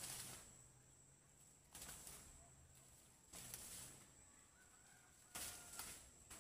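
Faint rustling of maize leaves in short swishes, one every one to two seconds, with a closer pair near the end.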